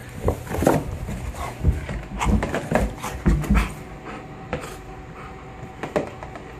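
Golden retriever panting and chewing at a cardboard tissue box, with crackling of the box and a few thumps, busiest in the first few seconds.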